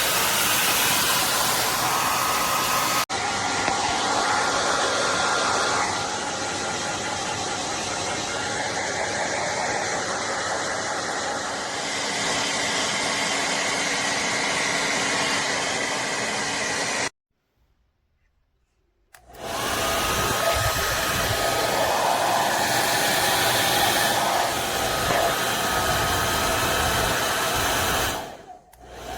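AINA ionic hair dryer blowing steadily with a faint whine. It cuts out for about two seconds in the middle, comes back, and dies away near the end.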